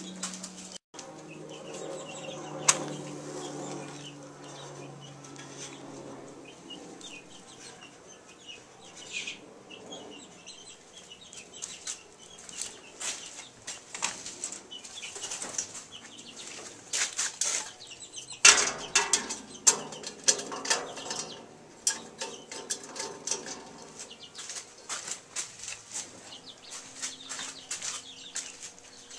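A kerosene cookstove's pre-soaked wick being lit and catching, the flame crackling and sputtering in quick irregular clicks that thicken from about twelve seconds in, with one loud knock about two-thirds of the way through.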